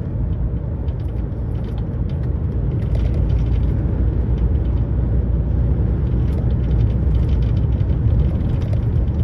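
Inside a lorry's cab while driving: the diesel engine and road noise make a steady low rumble, a little louder from about three seconds in.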